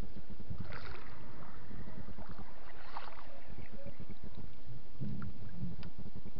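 Wind rumbling on the microphone over water moving around a small boat, with brief splashy flurries about a second in and again around three seconds in.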